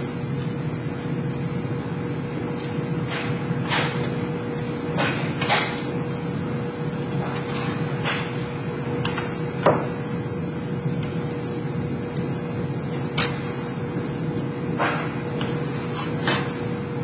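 Aviation snips cutting notches in galvanized sheet-metal duct pieces, with the pieces handled on the bench: scattered sharp clicks and snaps, a second or more apart, over a steady hum with one constant low tone.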